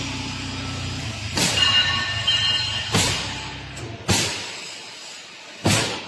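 An engine idling with a steady low hum that fades away about three to four seconds in, with four loud, sharp knocks spread through, the last near the end.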